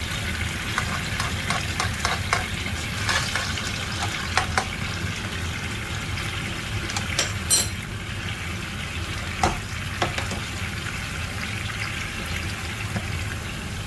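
Soy-sauce-based sauce sizzling in a hot pan as it is stirred, a steady hiss broken by the occasional sharp clink of the utensil against the pan.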